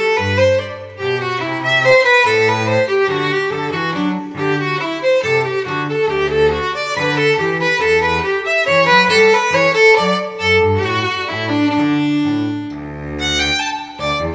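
Intro music on bowed strings led by a violin, a melody of changing notes over a lower bass line.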